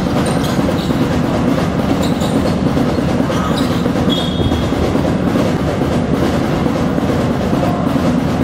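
Steady, dense hall noise of a basketball game in play, with a short high squeak about four seconds in.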